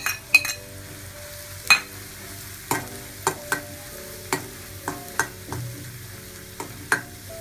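A utensil stirring and clinking against a kadhai as ground masala paste is fried in hot oil with garlic. There is a low sizzle under about a dozen irregular sharp clinks, the loudest about a second and a half in.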